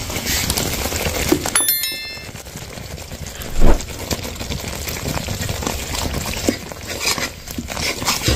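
Wet ground masala paste going into hot tomato and oil in an aluminium kadhai, sizzling and steaming, with a metal spatula scraping and clinking against the pan. There is one loud thud about three and a half seconds in and a brief bell-like chime a little before two seconds.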